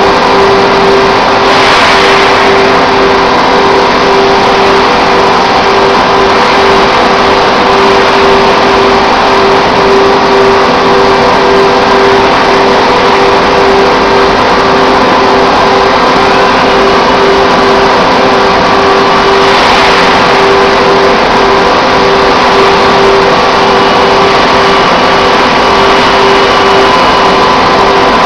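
Automated handling line machinery running: a loud, steady mechanical drone with a pulsing mid-pitched tone that repeats at an even rate. There are two brief rushes of hiss, one about two seconds in and another about twenty seconds in.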